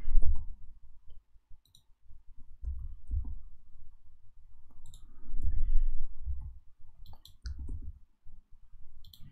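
Scattered clicks of a computer mouse and keyboard keys, a dozen or so at irregular intervals, with a few dull low thumps in between.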